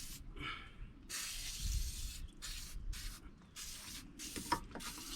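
Aerosol white lithium grease sprayed onto a lower control arm in a series of short hissing bursts, several spurts in a row.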